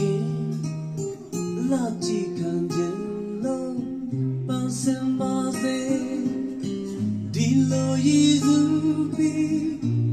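Recorded song with plucked and strummed acoustic guitar over a steady bass line, played back through a Marantz Stereo 70S.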